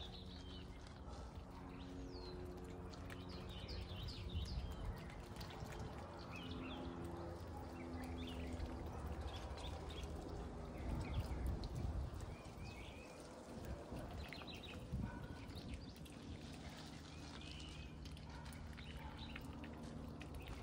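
Small birds chirping and twittering now and then over a low, steady background hum.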